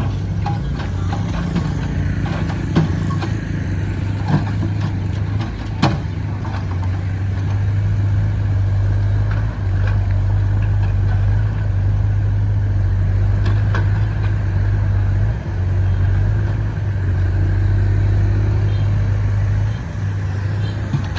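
Diesel engine of an XCMG XE60WA wheeled excavator running steadily under working load, louder through the middle stretch. A few sharp knocks sound in the first six seconds.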